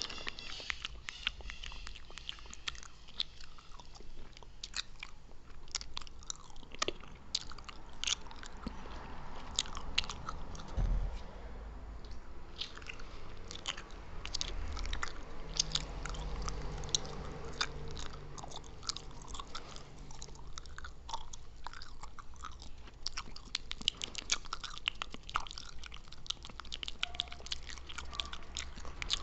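A person chewing gum with mouth sounds: a dense, irregular run of small clicks from the chewing.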